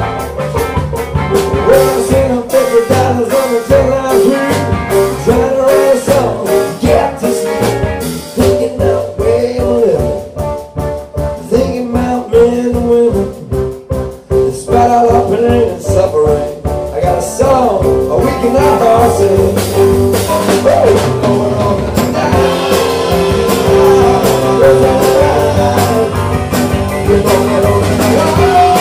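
Live band playing a song on keyboard piano, electric bass, drum kit and electric guitar. The playing thins out and drops in level for a few seconds around the middle, then builds back to the full band.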